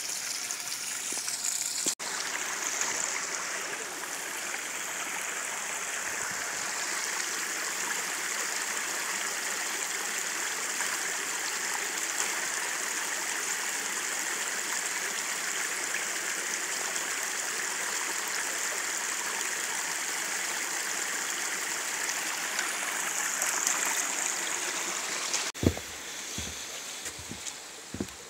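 Water pouring steadily from a forest spring's pipe spout onto the stones below, a continuous rushing splash. A few low thumps near the end.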